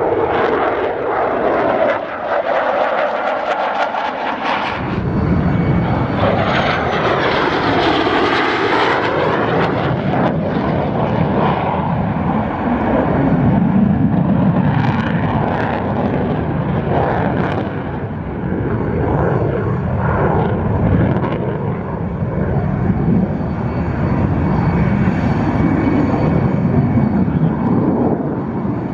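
F-16 fighter jet's single Pratt & Whitney F100 turbofan running loud and continuous in a display pass, with sweeping shifts in tone as the jet moves across the sky. A deep rumble swells in about five seconds in.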